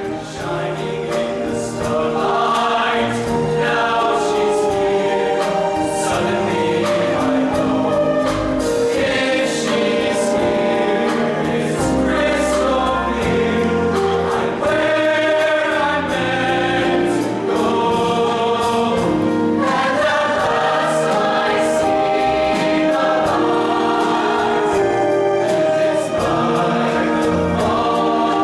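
Mixed show choir of male and female voices singing together in harmony, at a steady full volume.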